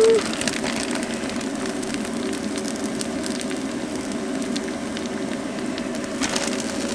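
A thin crepe frying in a pan with cheese on top, giving a steady sizzle and crackle.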